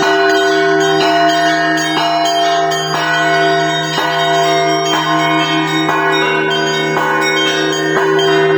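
Russian Orthodox church bell ringing (zvon): several bells of different pitch struck in a rhythmic pattern over the sustained tone of a deep bell, the strokes overlapping as they ring on. About six seconds in, a small bell adds a run of quick strokes.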